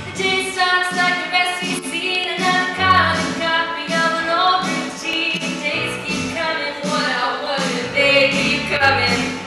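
Female voices singing a musical-theatre number, live, with instrumental accompaniment carrying low bass notes underneath.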